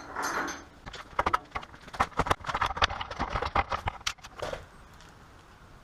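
Irregular clattering and clicking of hard objects being handled, a quick uneven run of sharp knocks for about three and a half seconds that then stops.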